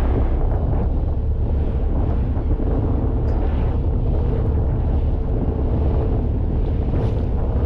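Wind buffeting the microphone over the steady low drone of a fishing boat, with a faint steady hum.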